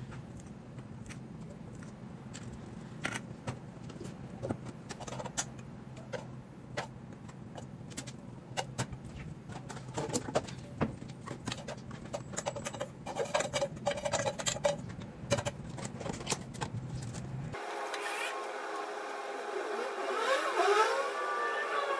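A spoon scraping and clacking against a nonstick saucepan as cooked rice is scooped out into aluminium trays, many short scrapes and taps over a steady low hum. Near the end the hum cuts off abruptly and a different sound with sliding pitches takes over.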